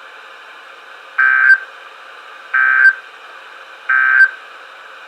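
Three short bursts of buzzing digital data, about a second apart, over steady radio hiss: the NOAA Weather Radio's SAME end-of-message code, which marks the end of the tornado warning.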